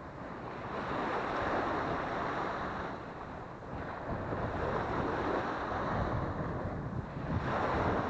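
Small waves washing up onto a sandy beach, the surf swelling and fading about every three seconds, with wind rumbling on the microphone.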